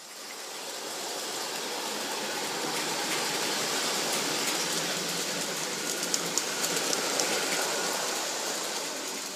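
O-gauge toy train running on three-rail tubular track: a steady rolling rumble with scattered sharp clicks around the middle. It swells in over the first second or so.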